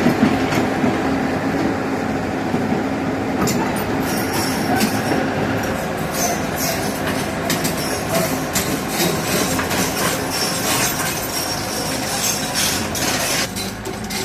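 Heavy tracked earthmoving machine on the move: a steady diesel engine drone under dense metallic clanking and squealing of its crawler tracks, which starts about three seconds in and stops shortly before the end.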